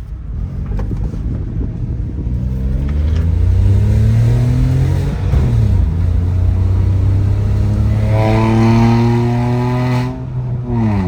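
Volkswagen Polo's 1.0-litre MPI petrol engine, OBD-remapped, pulling under hard acceleration: its pitch climbs, drops with an upshift about five seconds in, climbs again and drops with another upshift near the end.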